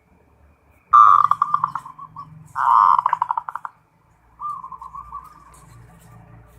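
Zebra dove (perkutut) cooing: two loud, fast-pulsed rolling coos about a second in and about two and a half seconds in, followed by softer wavering coos near the end.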